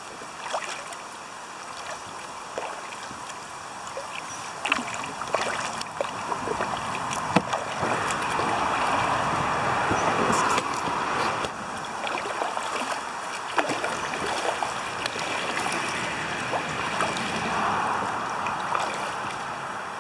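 Freeway traffic noise that swells and fades as vehicles pass, over the splashes and drips of kayak paddle strokes in the river.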